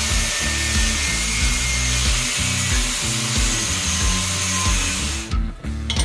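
Angle grinder with a cut-off disc cutting through steel rectangular tubing: a steady hiss with a thin whine, stopping about five seconds in. Background music with a steady beat underneath.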